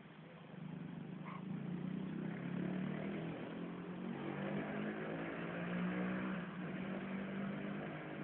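A motor vehicle's engine running steadily, swelling up about half a second in.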